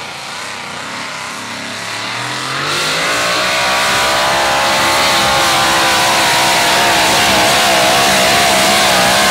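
Supercharged engine of a two-wheel-drive pulling pickup at full throttle, hauling the sled. The revs rise sharply about two and a half seconds in, then hold high with a wavering pitch.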